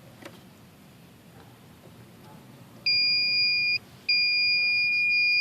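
A multimeter's beeper sounds a steady high-pitched tone as the test leads make contact across a contactor's coil terminals. It beeps for about a second, breaks off briefly as the contact slips, then comes back and holds steady: the meter is now getting a reading through the coil.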